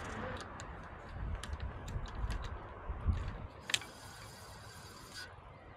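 Light, irregularly spaced clicks and ticks of bicycle parts and tools being handled as the disc-brake conversion is finished, with a short hiss-like rustle about four seconds in.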